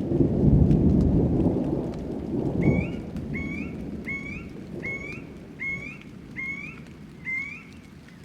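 Thunder rumbling and fading away over the first few seconds, over a light patter of rain. Then a bird calls one short, upward-sliding note about seven times in a steady series.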